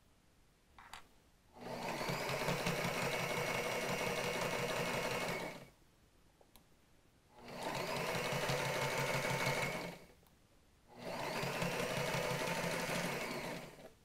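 Sailrite Ultrafeed walking-foot sewing machine stitching through thick layers of upholstery fabric in three steady runs, the first about four seconds long and the next two about three seconds each, with short pauses between.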